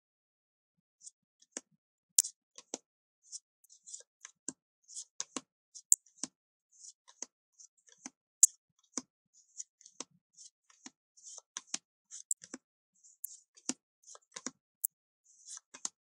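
Thick, gilded-edge oracle cards being handled one at a time: irregular soft swishes of card sliding over card, with sharp little clicks and taps as cards are picked up and laid down, a few a second.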